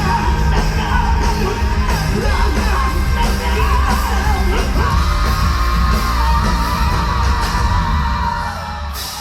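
Live rock band playing loud with heavy bass and drums while a singer belts out a vocal line, holding one long note midway, heard in a large hall.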